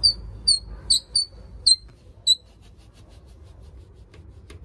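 A metal mesh screen door squeaking six times, short sharp high squeaks at the same pitch over about two seconds, followed by a few faint clicks.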